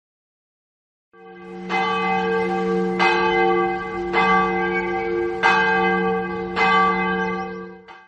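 A large church bell tolling slowly: about five strikes at an even pace, each ringing on into the next. It starts about a second in and fades away near the end.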